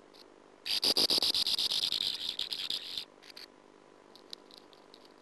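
Sand martin in its nest burrow: a fast rasping train of about ten pulses a second, starting just under a second in and lasting about two seconds, then two short pulses and a few faint ones.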